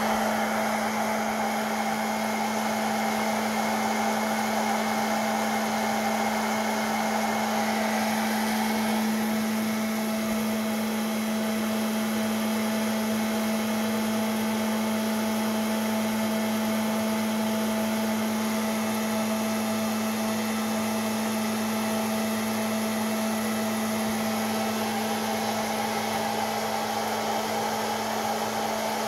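Hot-air popcorn maker running to roast coffee beans: its blower motor gives a steady hum under a rush of hot air, the tone shifting slightly about eight seconds in. Early in the roast, with no cracking yet.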